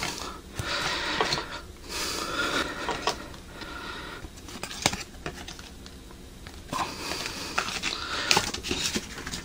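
Trading cards being handled and flipped through by hand: an irregular papery rustle and sliding, with small ticks as the cards tap together.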